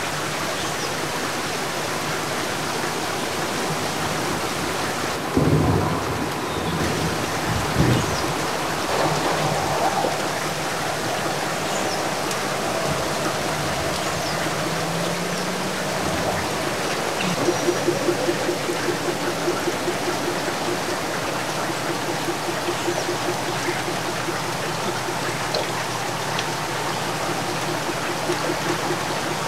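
Heavy rain pouring steadily, with a low rumble of thunder about five to eight seconds in. From about seventeen seconds on, a steady low pulsing sound runs under the rain.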